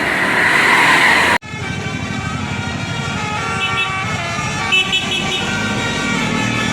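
A bus's multi-note 'telolet basuri' musical horn plays a tune of short held notes. It comes after an abrupt cut about a second and a half in, before which there is a loud rushing noise.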